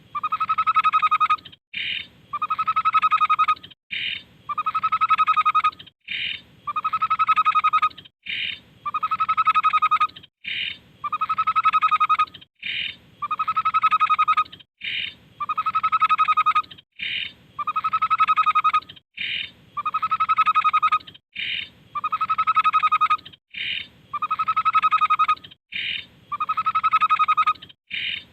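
Tepus (babbler) song repeating very regularly, about every two seconds, as in a looped masteran recording. Each phrase is a short high note followed by a longer, rapidly pulsed trill.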